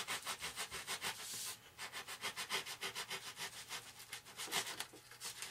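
A small hand tool scraping back and forth against a molded foam RC airplane part in quick strokes, several a second, trimming a little more foam away.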